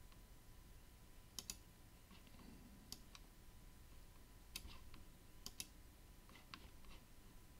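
Computer mouse clicking about eight or nine times, spaced out and some in quick pairs, against near silence with a faint steady tone.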